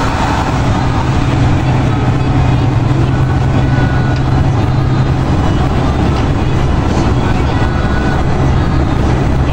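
Steady low engine hum with road and tyre noise, heard from inside a vehicle cruising at road speed.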